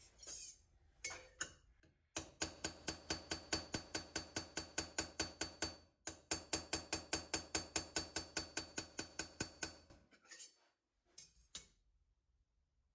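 Carbide straightening hammer tapping a hardened Magnacut steel chef's knife blade on a small anvil in light, quick, even strikes, about four or five a second, with a ringing tone under them and a short break about six seconds in. It is peening lines along the blade to straighten out a banana-shaped warp. A few knocks and clicks before and after come from the blade being handled on the anvil and surface plate.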